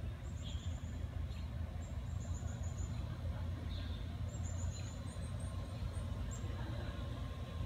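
Outdoor ambience: a small songbird chirping in several quick high runs of five or six notes, with a few single chirps, over a steady low rumble.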